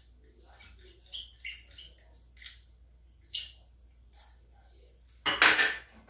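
Light clinks and taps of a spoon against a small glass bowl and a stainless steel pan as minced garlic is scraped into the oil, followed by a louder half-second noise near the end.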